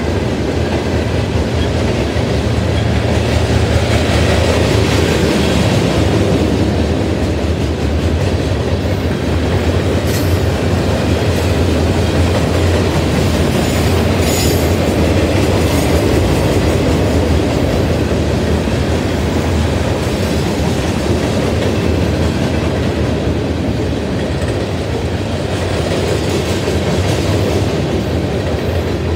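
Freight cars of a Union Pacific mixed freight train rolling past on the near track: a steady, loud rumble with wheels clacking over the rail joints.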